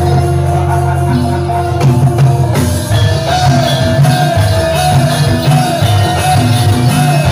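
Live jathilan (kuda lumping) accompaniment music, played loud by a Javanese gamelan-style ensemble: drums, a deep bass line, a short repeated figure in an even rhythm, and a held higher melody note.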